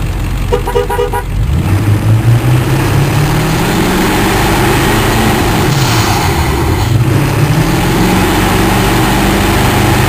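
2001 Ford Powerstroke 7.3L V8 turbodiesel accelerating hard from a stop, heard from under the hood beside the air cleaner. Its pitch rises steadily, drops at an automatic-transmission upshift about six seconds in, then climbs again. A brief series of beeps sounds about half a second in.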